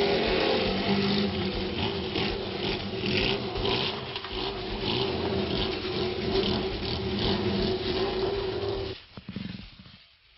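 Vehicle engines running at a steady pitch, with a rasping noise coming and going about twice a second; the sound falls away almost to silence about nine seconds in.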